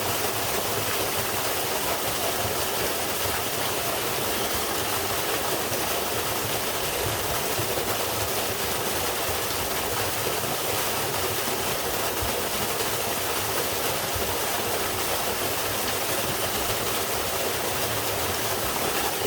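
Straight-drop waterfall pouring into a mountain stream: a steady, unbroken rush of falling water.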